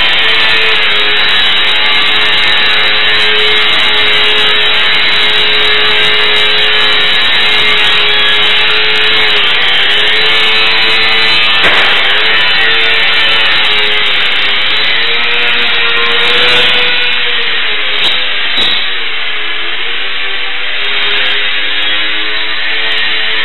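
E-Flite UMX Extra 300 ultra-micro plane's electric motor and propeller buzzing steadily, its pitch wavering up and down as the throttle changes through the manoeuvres.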